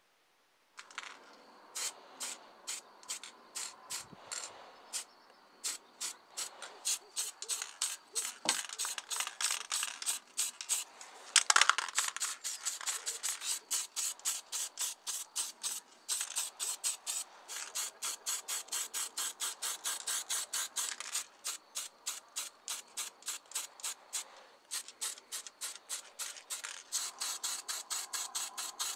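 Aerosol can of acrylic spray paint sprayed in rapid short puffs, about three to four a second, with one longer burst midway.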